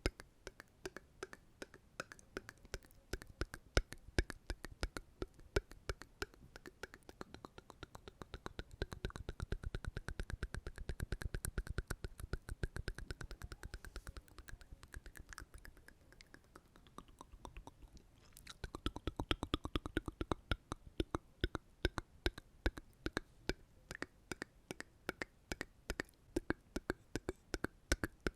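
ASMR mouth sounds close to the microphone: a rapid run of wet mouth and tongue clicks, several a second, with a softer, closer-packed stretch about a third of the way in and a brief lull past the middle.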